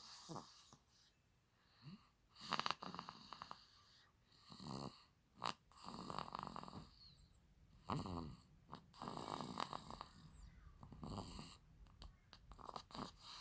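A sleeping person snoring, a string of rattling breaths a second or two apart, through a nose blocked with mucus.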